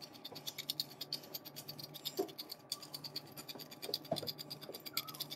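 Pepper grinder being twisted to grind peppercorns: a fast, even run of faint scratchy clicks.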